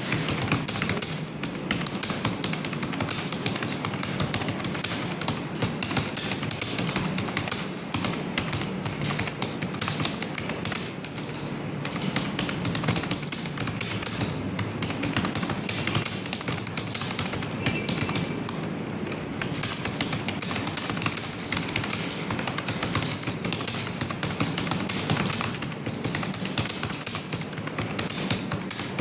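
Fast, continuous typing on a computer keyboard: rapid, uneven key clicks without pause.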